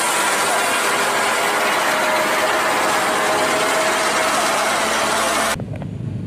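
Kato NK-350H truck crane running loud with a busy mechanical rattle, its note rising slightly. It cuts off abruptly about five and a half seconds in, leaving a quieter low rumble and a few light clicks.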